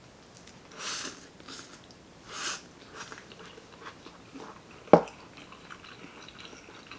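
People eating pancit canton instant noodles: soft chewing, with two short hissing sounds about one and two and a half seconds in and a single sharp click near five seconds.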